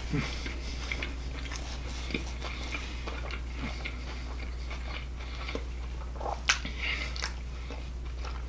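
A person chewing a mouthful of crispy spicy chicken sandwich: scattered soft mouth clicks and smacks, one a little louder about six and a half seconds in, over a steady low hum.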